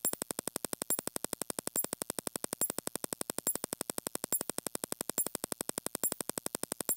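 Rapid, machine-even clicking, about ten clicks a second, with a brighter high click recurring roughly every second.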